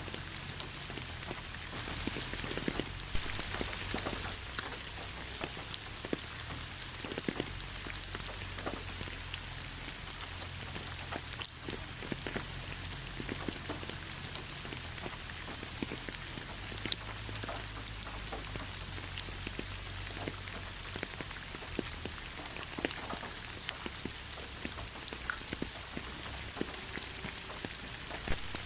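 Steady rain falling, with many individual drops ticking and pattering on a surface over a constant hiss.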